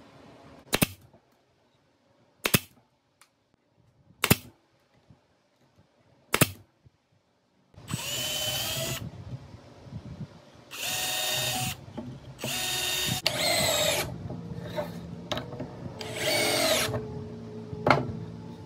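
Four sharp clicks, then a power drill running in several short bursts of a second or so, its whine shifting in pitch.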